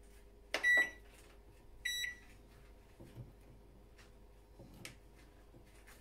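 Microwave oven keypad beeping twice, two short high beeps about a second apart, as the cooking time is set, over a faint steady hum.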